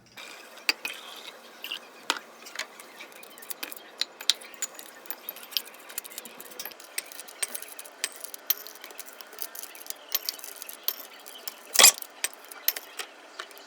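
Irregular light clicks and clinks of small hard objects, a few a second, with one louder knock about twelve seconds in.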